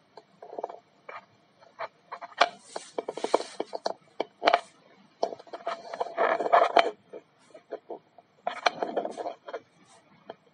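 Irregular rubbing and scraping with many sharp clicks and knocks, coming in patches with short pauses between.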